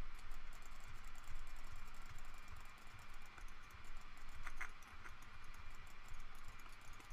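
Computer keyboard keys and mouse buttons clicking in quick, irregular succession as shortcuts are pressed, over a faint steady low hum.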